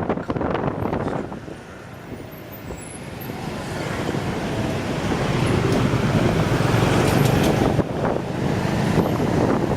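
Road traffic and wind rushing over the microphone during a ride on a motorcycle taxi, dipping about two seconds in, then growing steadily louder and staying loud.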